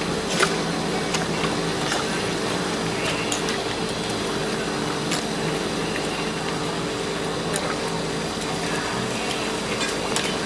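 A steady machine hum made of several unchanging low tones over a hiss, with a few sharp clicks and knocks scattered through it.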